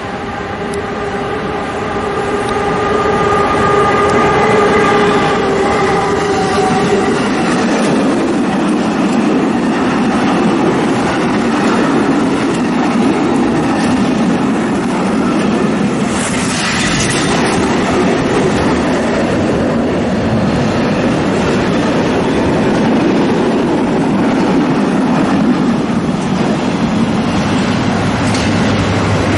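An SNCB Class 13 electric locomotive passes with a steady multi-tone whine that fades after about seven seconds. A long string of empty container flat wagons then rolls by with wheel clatter on the rails, and a brief hiss comes about halfway through. Near the end the low steady hum of a diesel locomotive drawing in is added.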